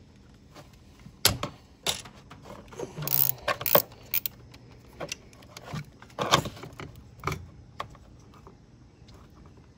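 Hand ratchet with an 8 mm socket backing out throttle-body bolts: irregular ratchet clicks and metal clinks and knocks. The clicking is busiest about three seconds in and again around six seconds.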